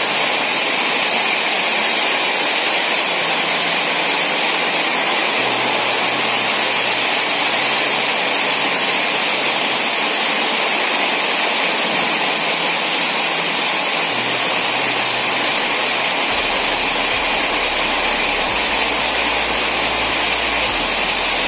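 Heavy rain pouring down steadily, a constant loud hiss of a downpour.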